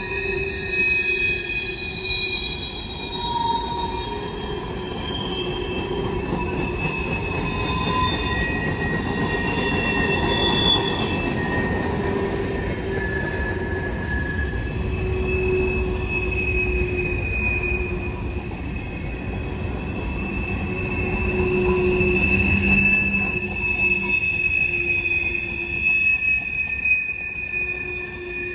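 Freight cars of a long CSX manifest train rolling past, the wheels squealing in several overlapping thin tones that slowly drift in pitch over a steady low rumble of steel wheels on rail.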